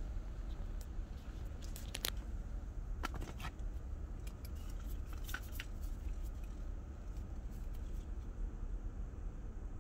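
Scattered light clicks and taps of a plastic and stainless electric pepper mill being handled, several close together about two and three seconds in and again about five seconds in, over a steady low rumble. No grinding motor runs.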